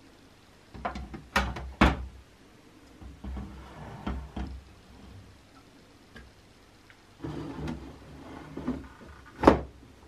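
Black plastic drip tray and stainless-steel drip plate of a DeLonghi ECAM coffee machine being handled and fitted together: three sharp clicks and knocks in the first two seconds, softer scraping and clattering of plastic in between, and one loud knock near the end as the tray is pushed into the machine.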